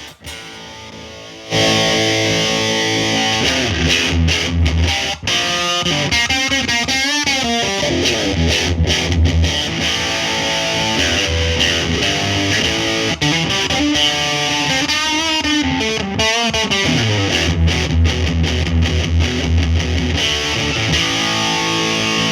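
Electric guitar played through a 1994 Marshall Valvestate 8020 20-watt amp on its overdriven drive channel: distorted chords and lead lines with bent, wavering notes. The playing is quiet at first and turns loud about a second and a half in.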